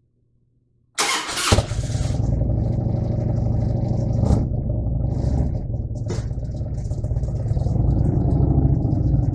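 An engine cranks and catches about a second in, then runs at a steady idle.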